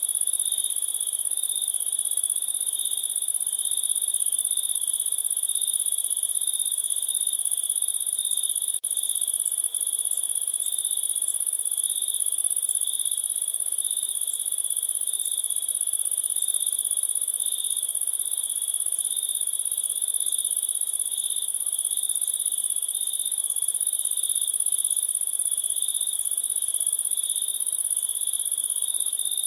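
A chorus of crickets chirping continuously, a steady high trill with a second, even higher trill above it. A momentary break about nine seconds in.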